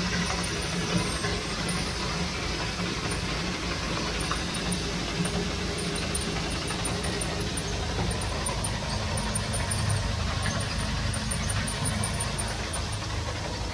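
Flour-mill grain-cleaning machinery running steadily: a continuous low hum with an even hiss of grain and air over it.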